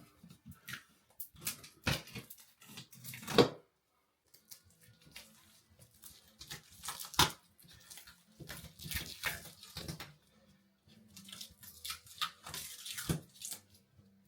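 Irregular scraping, tapping and tearing noises of hand work in a small room, with a sharp knock a little over three seconds in and another about seven seconds in.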